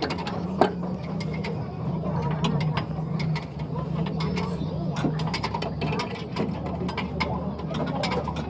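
Irregular light metallic clicks and taps from tools working on metal, over a steady low hum.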